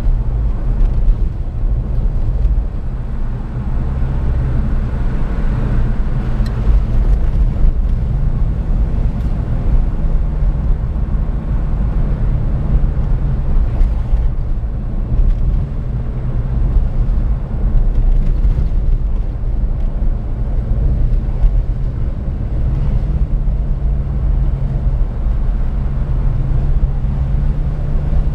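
Steady low rumble of a car's engine and tyres heard from inside the cabin while driving slowly on a worn paved road. The engine note shifts up and down a little at times.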